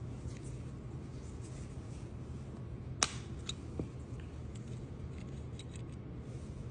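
Small clicks and taps of tiny die-cast toy car parts being handled while their wheels are swapped, with one sharp click about three seconds in and two lighter ones just after, over a steady low hum.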